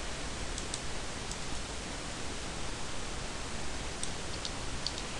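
Steady hiss of microphone background noise, with a few faint computer mouse clicks about a second in and again about four seconds in.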